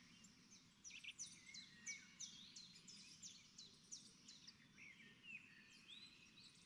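Faint birds chirping: a quick, irregular series of short, high chirps that slide downward, over faint room noise.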